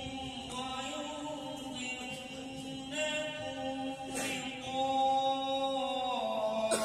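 Male reciter chanting the Quran in melodic tilawat style, holding long notes that shift slowly in pitch.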